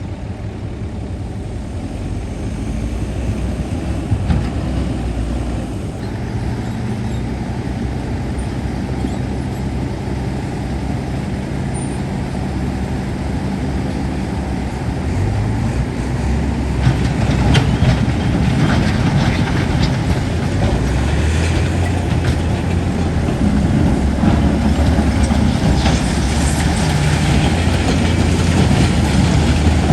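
Heavy diesel earthmoving machine running, its low engine note shifting with load and growing louder about halfway through, with scattered metallic clanks and rattles in the second half.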